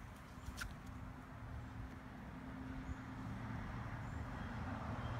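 Low steady motor drone, like a distant engine, growing slightly louder, with a single faint click about half a second in.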